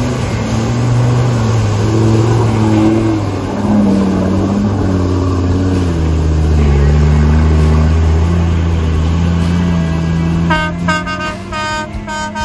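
Land Rover Discovery engine revving hard under load as it drives through a deep, water-filled mud rut, the pitch rising and falling and loudest past the middle. Near the end, a run of short, evenly repeated tones starts.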